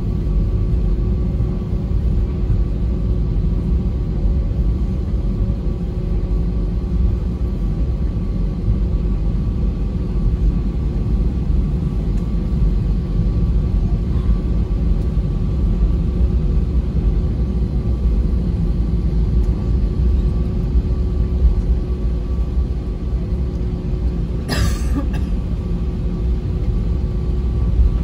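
Cabin noise of an Airbus A320neo taxiing on idling Pratt & Whitney PW1127G geared turbofans: a steady low rumble with faint steady engine tones above it. A brief knock sounds about three-quarters of the way through.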